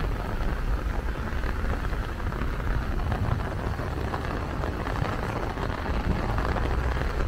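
Heavy rain falling: a steady hiss with a dense patter of drops striking the umbrella overhead, over a low rumble.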